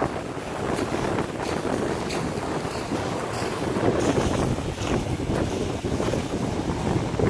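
Wind buffeting the microphone in a steady low rumble, over Lake Superior waves washing on the shore.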